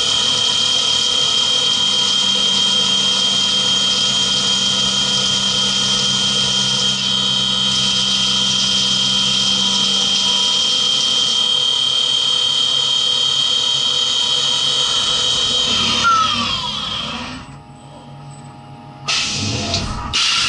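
CNC mini milling machine face-milling aluminium with a 50 mm face mill under flood coolant: a steady high-pitched cutting whine. About 16 seconds in the spindle winds down with falling pitch and the machine goes quiet, and a short, loud burst of noise follows near the end.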